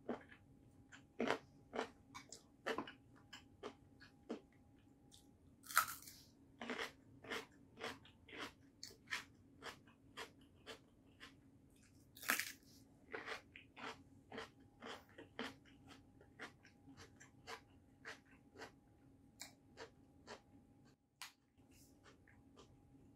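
Close-up chewing of rice and raw vegetables, a steady run of small wet crunches about twice a second. Two louder crunchy bites into a raw green vegetable come about six seconds in and about twelve seconds in.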